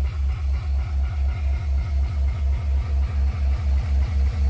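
Car hi-fi system playing bass-heavy electronic music, a fast, deep kick drum pulsing about four times a second with fainter synth tones above it, heard from outside the car.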